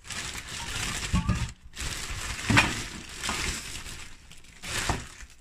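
Plastic grocery bags rustling and crinkling as shopping is pulled out and handled, with a few soft knocks of items against the counter.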